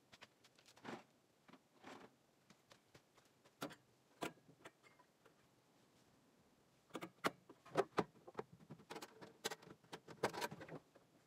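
Light clicks and metallic knocks of a metal diamond-plate toolbox and its chrome sockets being handled. The knocks are sparse at first and become a denser, louder clatter from about seven seconds in, as the lid is shut.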